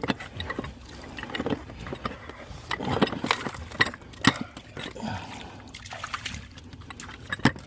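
Water trickling and sloshing in a flooded pipe-repair hole, with scattered knocks and scrapes as a threaded fitting is forced onto an irrigation mainline by hand. The sharpest knock comes about four seconds in.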